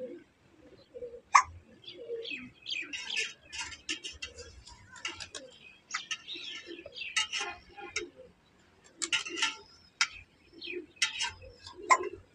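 Small birds chirping busily in many short, high calls, with doves cooing low underneath. A single sharp, loud note about a second and a half in is the loudest sound.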